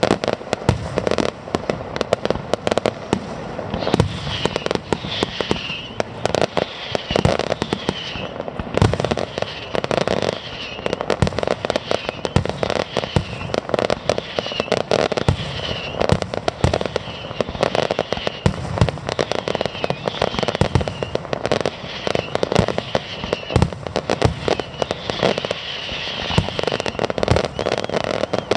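Fireworks display: a dense, continuous barrage of bangs and crackles, with short falling whistles repeating through most of it.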